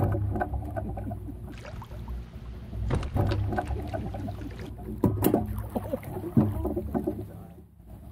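A small boat's hull knocking and scraping against the shoreline logs and rocks, with clunks as people shift about and climb out. The knocks are irregular, the loudest about three and five seconds in, over a steady low rumble.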